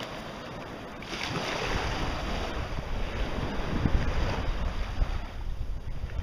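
Wind blowing across the microphone, a low rumble that picks up about two seconds in, over the steady hiss of small waves and shallow surf.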